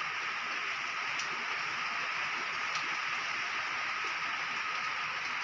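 Steady rainfall, an even hiss that holds at one level, with a faint steady tone underneath and a couple of light ticks.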